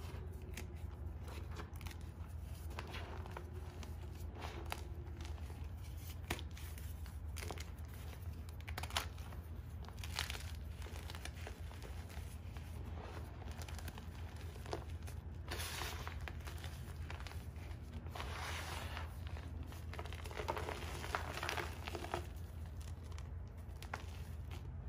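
Hands crushing and crumbling blocks of gym chalk in a heap of loose chalk powder: many small crunches and crackles, with longer gritty rustling stretches as handfuls are squeezed and rubbed apart. A steady low hum runs underneath.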